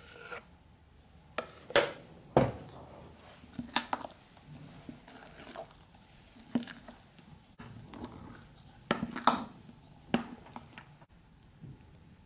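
Metal spoon folding whipped cream into a chocolate cream cheese filling in a ceramic bowl: irregular clinks and scrapes of the spoon against the bowl, the loudest about two seconds in and again around nine seconds.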